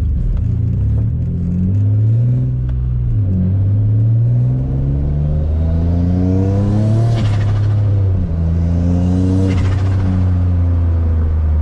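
Single-turbo Infiniti G35's 3.5-litre VQ35 V6 accelerating hard. The revs climb, drop sharply at a gear change about seven seconds in, then climb again and hold steady.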